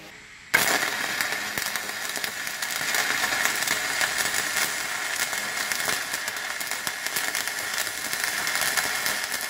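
Stick (MMA) welding arc struck about half a second in, then a steady crackling sizzle as the coated electrode burns down while a bead is run on flat steel plate.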